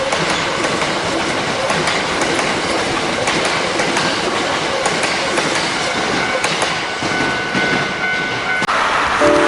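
Electric train running on the track, its wheels clattering over rail joints, with a steady high tone joining in for the last couple of seconds. It cuts off suddenly about nine seconds in, and music begins.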